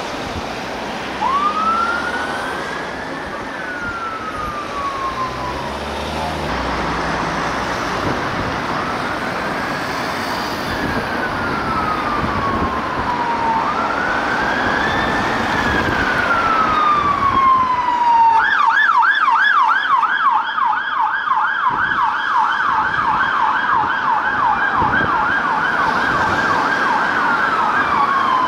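Emergency vehicle siren sounding a slow wail, each rise and fall taking several seconds. About two-thirds of the way through it switches to a fast yelp, then returns to the wail near the end. It gets gradually louder as the vehicle approaches, over road and engine noise.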